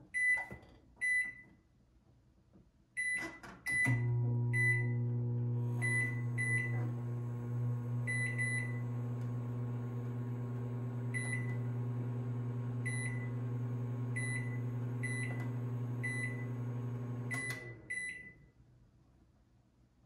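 Sharp Carousel SMC0710BW 700-watt countertop microwave: a few single high keypad beeps, then about four seconds in it starts with a click and runs with a steady low hum for about fourteen seconds while more keypad beeps sound over it. The hum cuts off a couple of seconds before the end, as the oven is stopped.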